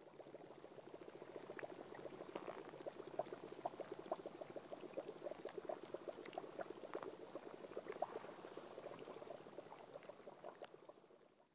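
Air bubbles escaping from dry riverbed sand as a thin sheet of water soaks into it: a dense, continuous fizz of tiny pops and gurgles, like something simmering, that fades out near the end.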